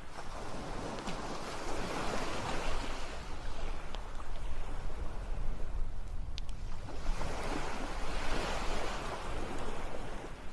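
Ocean waves surging and washing in twice, each swell rising and falling over a few seconds, with a few sharp pops of a crackling campfire.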